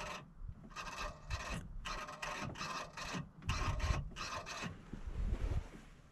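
Electric actuators on the hydraulic control valve of a 1999 Bobcat 864 skid steer (AHC hand-control system) whirring in a series of short bursts, about seven or eight, as the joystick is moved with the key on, a test of which control directions still respond.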